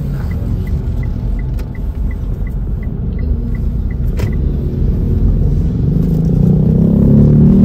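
Mitsubishi Pajero Sport heard from inside the cabin, with engine and road rumble as it moves slowly, and the turn signal ticking about three times a second through the first half. Near the end the engine picks up revs and grows louder as the car pulls away.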